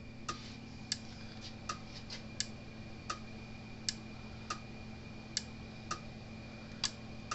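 Gallagher M800 electric fence energizer running, giving a sharp tick with each output pulse, about one every 0.7 seconds, over a steady low hum. The regular pulsing shows the unit firing normally, with no arcing found.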